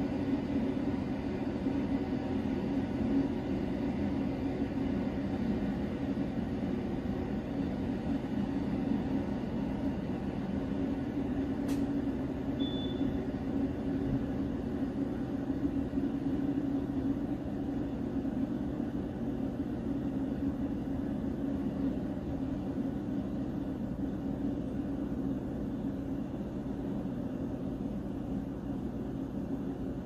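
SOWTECH CM6811 steam espresso machine running steadily as it heats up: a low, even rumble. A single sharp click and a short high squeak come about twelve seconds in.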